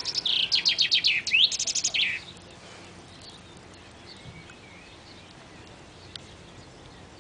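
A songbird singing one phrase of about two seconds: rapid high chirps and short quick trills, ending in a lower note. After that there is only faint outdoor background.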